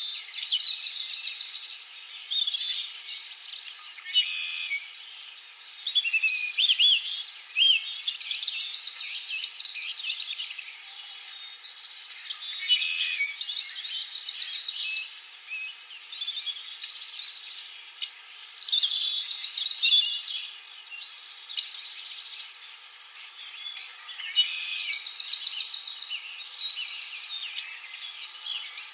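Songbirds singing in spring, several birds overlapping: whistled, gliding notes and a buzzy, trilled phrase that comes back every five or six seconds. Under them runs a steady high hiss of background nature sound.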